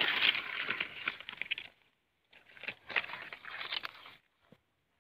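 Stiff pineapple leaves and dry grass rustling and crackling as someone pushes through the plants, in two spells with a short break between, the second stopping abruptly near the end.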